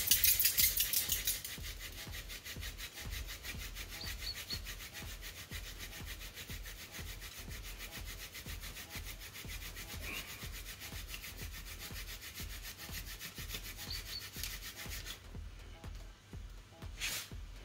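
Wooden hand-drill spindle rubbing hard in the notch of a hearth board, a rapid, even scraping rhythm, louder for the first second or so, as friction builds an ember. The drilling stops about 15 seconds in, and a single click follows near the end.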